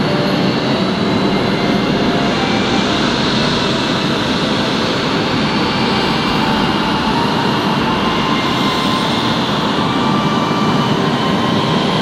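Embraer E-Jet's twin GE CF34 turbofans running at low power as the airliner rolls slowly along the runway: a steady jet engine rush with faint whining tones.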